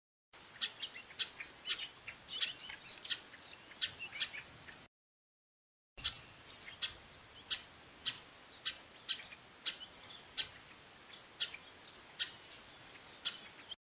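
Female chestnut-capped blackbird giving short, sharp call notes over and over, about one every half second to second, over a steady high insect buzz. The sound cuts out abruptly for about a second near the middle.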